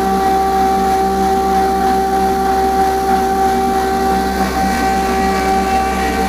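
3 HP masala spice pulveriser running steadily while whole spices are fed in and ground: a loud, unchanging motor drone with a steady whine over it.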